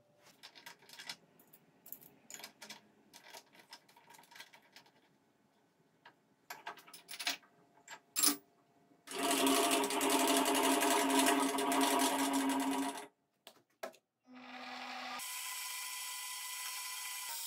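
Light metallic clicks as an ER collet, drill bit and wrench are handled. Then a benchtop milling machine's spindle runs steadily for about four seconds, stops, and about two seconds later runs steadily again.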